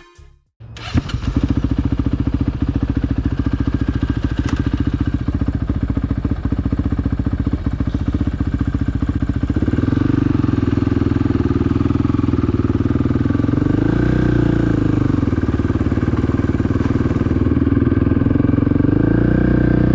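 Cessna 180's piston engine and propeller running, starting abruptly under a second in. The engine picks up revs about ten seconds in and wavers briefly around fourteen seconds.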